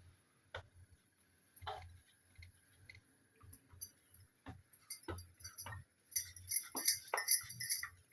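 Scattered clicks and knocks of kitchen work, then about two seconds of bright metallic clinking and jingling near the end.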